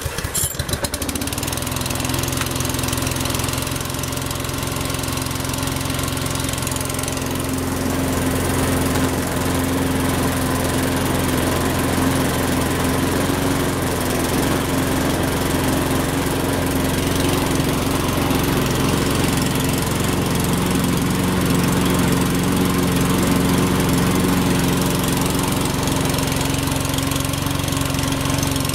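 Cobra petrol lawn mower engine catching on the first pull of its starter cord from cold, with the choke set, then running steadily.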